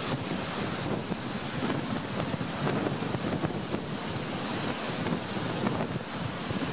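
Wind blowing across the microphone: a steady rushing noise that swells and dips a little.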